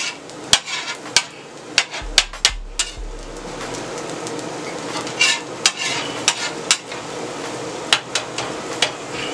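Eggs sizzling on a steel flat-top griddle, with a metal spatula scraping and clacking sharply against the steel many times and a low clunk about two seconds in. The frying hiss settles into a steady sizzle after about three seconds.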